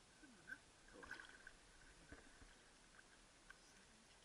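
Near silence, with faint small water splashes and lapping as a man in the water beside a kayak handles a freshly caught peacock bass.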